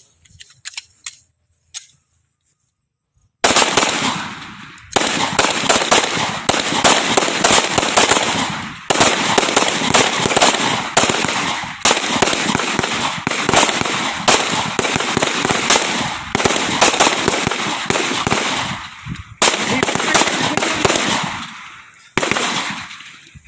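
Pistols firing rapidly on a shooting range, many shots overlapping into a continuous loud crackle that starts abruptly about three seconds in and comes in stretches, each cutting in sharply and tailing off.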